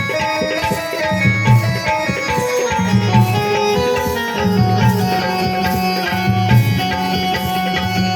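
Indian instrumental music: tabla drumming in a steady rhythm under a melody of plucked and held notes.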